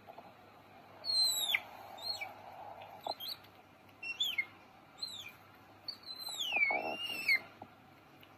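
Otter squeaking: about six high, thin calls that each fall sharply in pitch, the last one longer, dipping and rising again.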